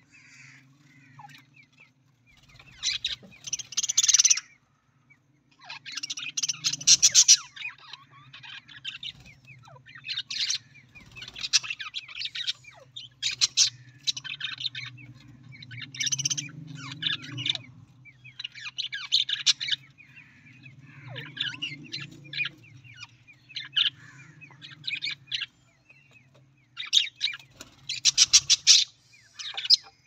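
A flock of budgerigars chattering and warbling in repeated bursts of fast, high chirps, with short pauses between the bursts.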